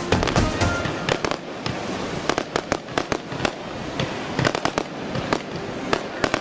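Fireworks going off in a rapid, irregular series of sharp bangs and crackles, with music fading out in the first second or so.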